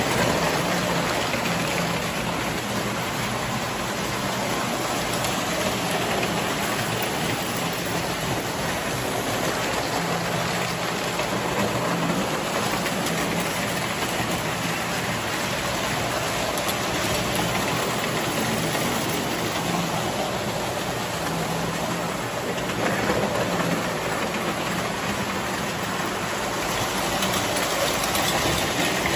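Toy electric trains running on tinplate three-rail track: a steady whir and rumble of metal wheels on the rails and of the locomotive motors, growing a little louder near the end as a locomotive passes close by.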